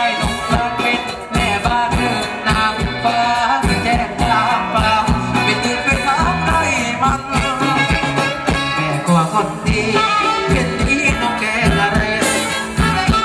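Live band playing Thai ramwong dance music: an upbeat tune over a steady, even drum beat.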